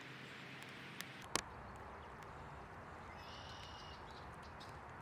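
Backyard outdoor ambience: a steady hiss with two sharp clicks a little after a second in and a brief high chirping call near the middle.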